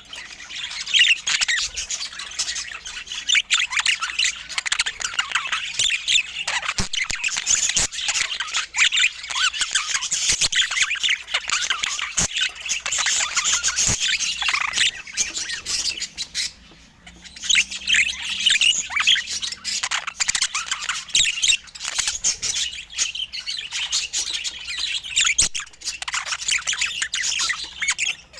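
Budgerigars chattering: a dense stream of fast chirps, warbles and squawks, with a brief lull about two-thirds of the way through.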